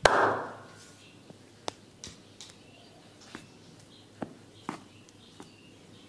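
Massage percussion on the body: one loud hit that dies away over about half a second, then about eight scattered sharp clicks and taps over the next four seconds.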